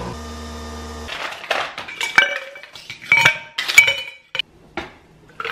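Cutlery clinking and scraping against dishes in a string of sharp clinks and knocks. A steady appliance-like hum cuts off about a second in, before the clinking starts.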